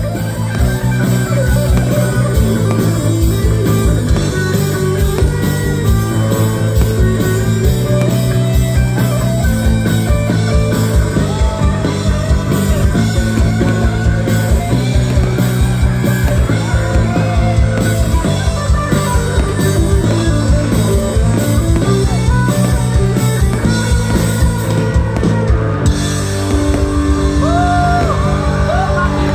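Live rock band playing with electric guitar, bass and drums keeping a steady beat. The arrangement shifts to a new section near the end.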